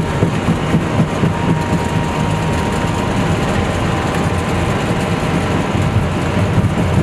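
Airbus A320 on its takeoff roll, heard from the cockpit: a steady, loud rumble of the engines at high thrust mixed with the landing gear running over the runway.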